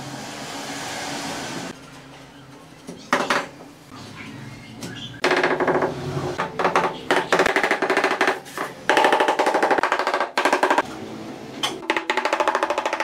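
Rubber mallet tapping ceramic floor tiles to bed them into a wet mortar bed, in fast runs of rapid blows from about five seconds in. A brief scraping noise comes near the start and a single knock just after three seconds.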